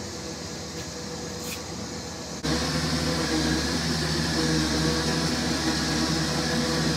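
Electric winch motor running with a steady whine, pulling a race car up ramps into an enclosed trailer. About two and a half seconds in the sound becomes suddenly louder and closer.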